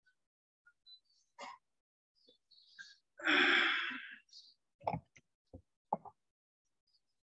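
A man's loud sigh close to the microphone, lasting about a second, followed by a few short clicks and knocks.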